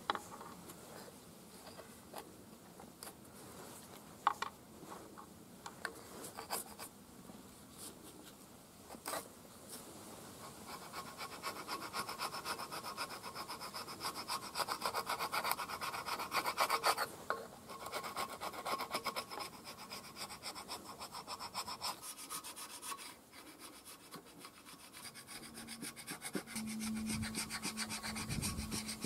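A flat scraper scraping old head-gasket residue off the gasket face of a Nissan SD22 cylinder head, in fast repeated strokes. A few scattered clicks come first, and the scraping then runs on with two short pauses.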